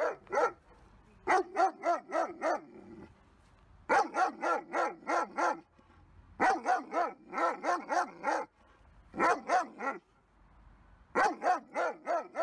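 German Shepherd barking in rapid volleys of five to seven barks, about four a second, with short pauses between volleys. This is the fear-based aggressive barking of a dog that is hostile to everyone but his owners.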